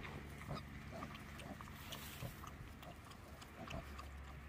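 Newborn piglets grunting and squeaking quietly in short, scattered calls, several a second.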